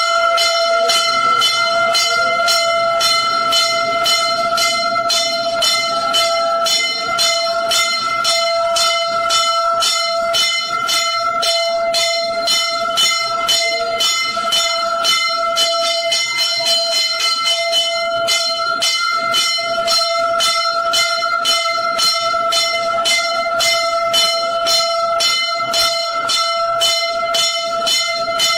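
Hindu temple bells rung fast and continuously during aarti, with several clanging strikes a second over a sustained metallic ring. It starts abruptly.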